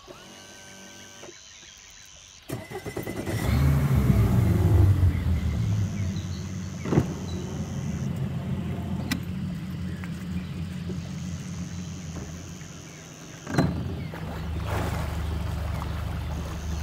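Bass boat's outboard motor starting about two and a half seconds in, revving up briefly, then running steadily.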